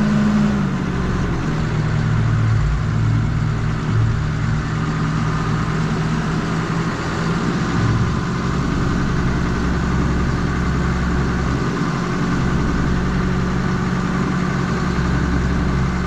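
Old diesel tractor engine running steadily, its note dropping slightly about a second in.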